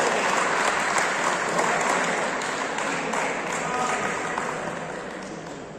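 Spectators applauding, with a few voices among them; the applause fades away over a few seconds.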